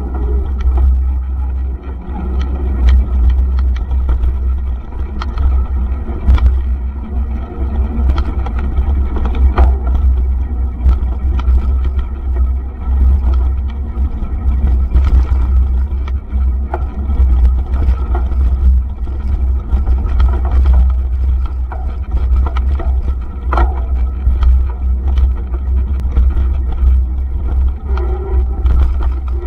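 Wind buffeting and rumble on a mountain bike camera's microphone while riding at speed, with frequent short rattles and knocks from the bike going over bumps on a dirt trail.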